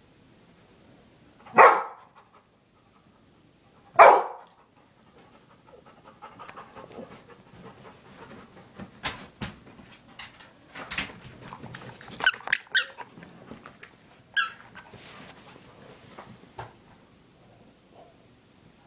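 A pet dog barking at a toy: two loud single barks a couple of seconds apart, then a quieter stretch of rustling, sharp high squeaks and clicks, with one last pitched squeak about 14 seconds in.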